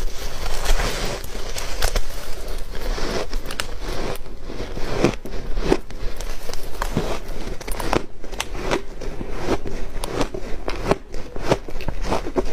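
Close-miked crunching of refrozen shaved ice being bitten and chewed: a dense, crisp crackle of many sharp little cracks as the layered ice breaks between the teeth.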